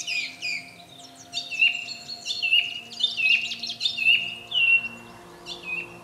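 Song thrush singing: a fast run of short, varied whistled phrases, the same figure often repeated several times over.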